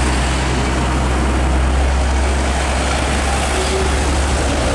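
Heavy trucks passing close by on a highway: a deep, steady engine drone under a thick wash of tyre and road noise.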